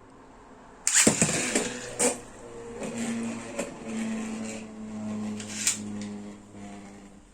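A Beyblade X top, Wizard Rod 5-70DB, launched with a sudden rip about a second in, then spinning with a steady whirring hum and a few sharp clicks, fading out near the end.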